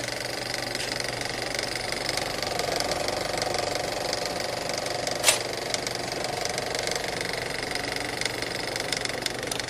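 Film projector running: a steady, fast mechanical clatter, with one sharp hit a little past the halfway point.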